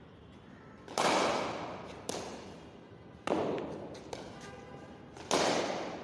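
Cricket bat striking the ball three times, about two seconds apart, each crack ringing on in a hard-walled hall. A lighter knock follows the first two strikes.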